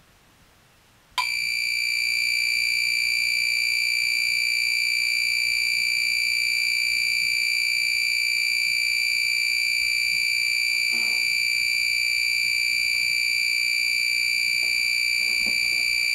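Elite Cuisine electric egg cooker's end-of-cycle alarm: a steady, high-pitched electronic buzz that starts suddenly about a second in and holds unbroken. It signals that the water has boiled off, the eggs are done and the cooker has shut itself off.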